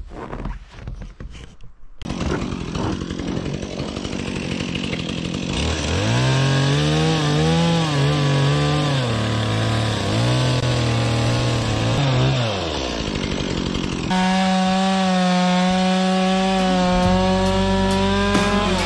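Chainsaw cutting through lake ice around a frozen-in boat to break it loose. Its engine note dips and climbs again and again as the bar bites, then holds steady at one pitch for the last few seconds.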